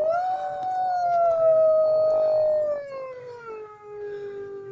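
Wolves howling: a long howl that rises briefly at the start, then slides slowly down in pitch and tails off near the end.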